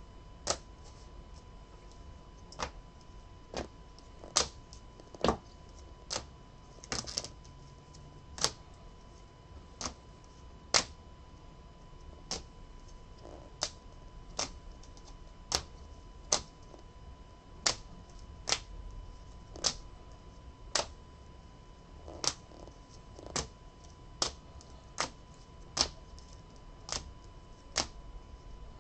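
Sharp plastic clicks and taps, roughly one a second and irregular, as trading cards in rigid plastic holders are set down one by one on a table.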